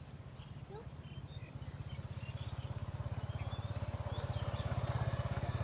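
A small engine running with a fast, even pulse, getting steadily louder, with a few faint bird chirps over it.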